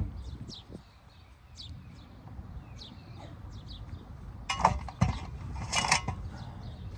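Small birds chirping in quick short calls throughout. Two brief rattling clatters, about four and a half and six seconds in, are the loudest sounds, from metal electrical fittings being handled while a surge protector's locking ring is fitted to a disconnect box.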